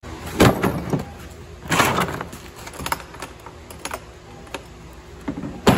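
Clicks and clatter of tools being handled and a plastic DeWalt tool case being opened, with a sharp knock near the end.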